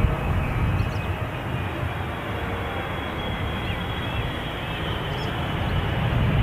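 Boeing 777 jet airliner on landing approach: steady engine rumble and rush of air with a faint high whine, growing louder toward the end as it comes over the runway to touch down.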